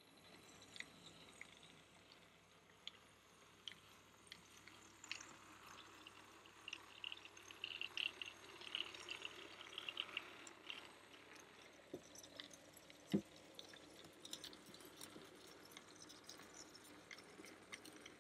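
Faint running of an OO gauge model goods train behind a small tank locomotive: irregular light clicks of wheels over rail joints and points over a quiet motor whirr, with one sharper knock about 13 seconds in.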